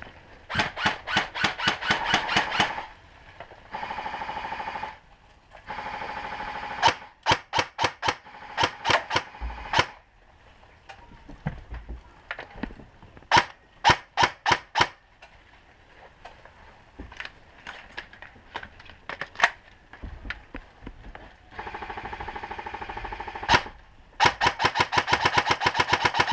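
Airsoft electric guns firing: long rapid full-auto bursts at the start and the end, with single shots in between, some closer and louder than others.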